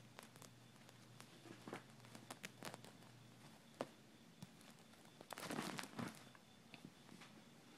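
Near silence with faint scattered clicks and a brief rustle about five and a half seconds in.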